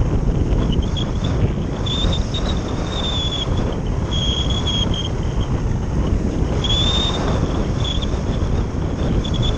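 Wind rushing over an onboard camera on a Phase 6 radio-control glider slope soaring in a strong wind: steady low buffeting on the microphone, with several brief high whines.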